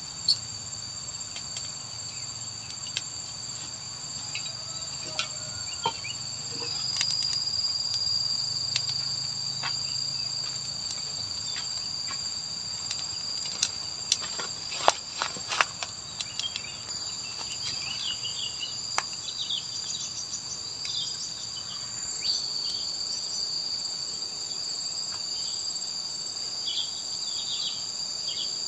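Steady, high-pitched drone of an insect chorus in tropical forest, two even tones held throughout. A few sharp clicks and knocks sound around the middle, with scattered short chirps near the end.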